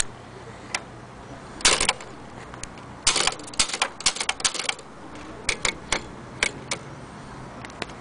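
Antique Corona manual typewriter being typed on: sharp, irregular key strikes, a few single clacks, then a quick flurry of strikes about three to five seconds in, then scattered single strikes again.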